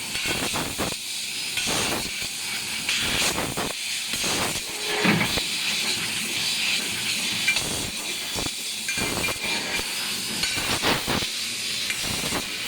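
Fiber laser tube cutting machine at work on metal tube: a steady hiss, with short noisy bursts breaking in irregularly about once or twice a second.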